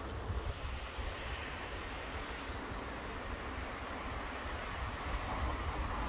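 Steady road-traffic noise from passing vehicles, an even hum over a low rumble, growing a little louder near the end.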